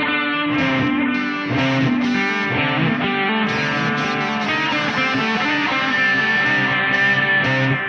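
Guitar music with many notes, including a held high note from about six seconds in.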